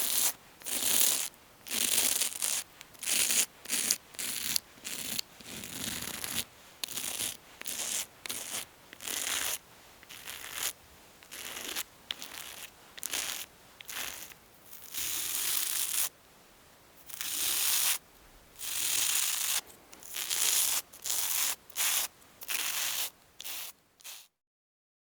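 Razor shaving, a series of short scraping strokes across stubble at roughly one a second, with a few longer strokes in the middle; it stops about a second before the end.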